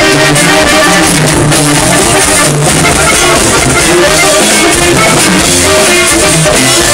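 Live band playing loudly: tuba, guitar and drums.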